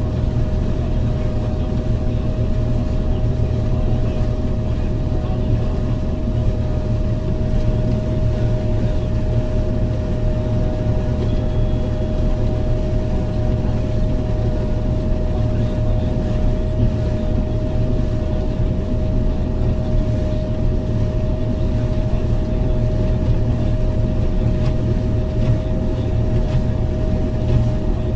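Heavy diesel farm machinery running steadily: a deep engine drone with a constant whine over it.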